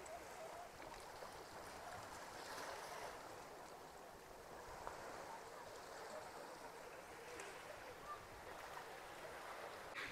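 Faint beach ambience: small sea waves washing gently over a pebble shore, a soft hiss that swells and fades, with faint voices of people on the beach.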